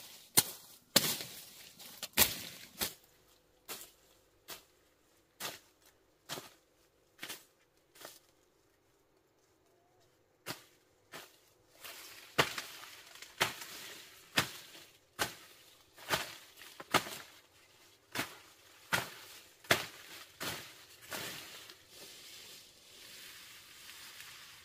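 A machete chopping through brush and tall reed-like grass stems in sharp strokes about one a second. The strokes stop for a couple of seconds, start again, then give way to a rustling of cut leaves near the end.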